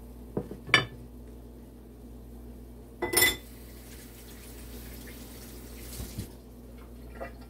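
Kitchen knife clicking against a ceramic plate as avocado slices are cut and laid out: a couple of light clicks at the start, then a louder clatter about three seconds in, and a soft thud near the end.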